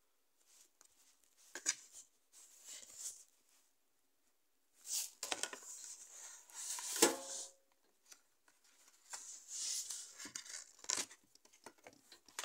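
Hands sliding a clear plastic slipcover off a cardboard DVD digipak and opening its card panels: intermittent rustling and scraping of plastic and cardboard, with short pauses and the loudest scrape about seven seconds in.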